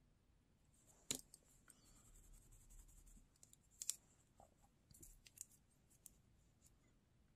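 Faint, scattered clicks and light scratching of a thin metal nail pick working loose glitter off a cured gel nail and being handled. The sharpest clicks come about a second in and near four seconds, with a few softer ones around five to six seconds.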